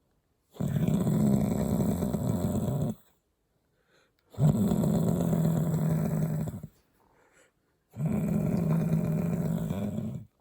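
A person snoring: three long snores of about two and a half seconds each, separated by short silent pauses.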